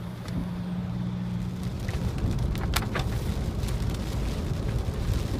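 Steady road and engine noise inside a moving car's cabin, with a low engine hum for the first second or so and a few sharp ticks scattered through the middle.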